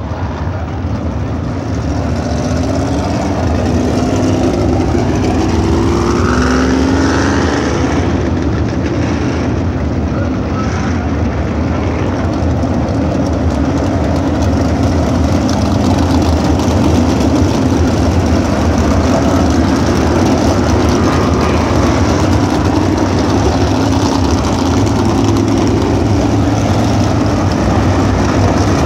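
A field of USAC Silver Crown race cars running on the dirt oval, their engines a loud, continuous drone. One engine rises in pitch as it accelerates about six seconds in.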